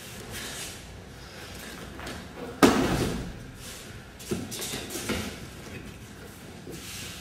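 A person thrown onto the dojo mat, landing in a breakfall with one loud thud about two and a half seconds in, followed by two lighter thumps.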